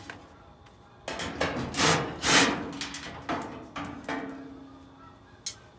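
Sheet-metal back panel of a dryer being worked loose and lifted off: a run of scrapes and knocks, loudest about two seconds in, then a brief ringing tone and a sharp click near the end.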